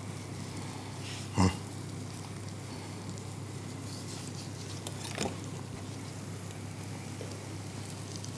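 Quiet kitchen background with a steady low hum, broken by two short knocks from handling at the counter: a louder one about a second and a half in, a fainter one about five seconds in.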